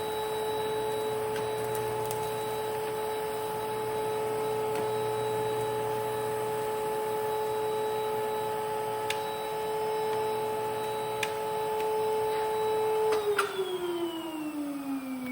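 Panasonic Jet-Flo MC-9530 canister vacuum motor running with a steady whine, with a couple of faint clicks. About 13 seconds in it is switched off and the motor winds down in a long falling whine, a sound the owner takes to mean the motor needs new bearings or new grease.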